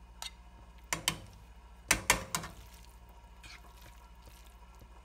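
Metal tongs clicking and knocking against a frying pan as spaghetti is lifted out and served, a few sharp clicks about one second in and a quick cluster around two seconds in, over a low steady hum.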